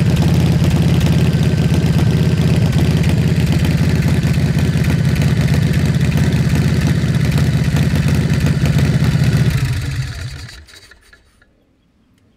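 Big Dog Ridgeback chopper's V-twin engine idling steadily through loud exhaust pipes, then shut off near the end, the sound dying away over about a second.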